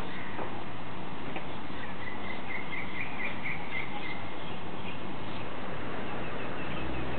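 Steady rushing hiss of a pond aerator spraying water, with a low motor hum under it. A bird chirps in a short run of quick notes about two to four seconds in.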